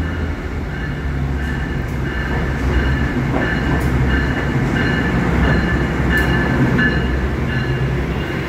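R156 diesel-electric work locomotive pulling the Vak Trak vacuum train into a subway station: the engine rumbles steadily as the wheels roll over the rails. Its electronic bell dings about twice a second.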